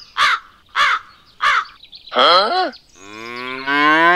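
Crow cawing: three short caws about half a second apart, then a longer falling call. A cow then gives one long moo, starting about three seconds in.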